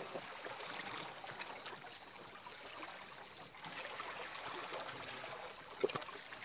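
Small sea waves lapping and trickling against a rocky shore, steady and gentle, with a couple of small clicks or splashes near the end.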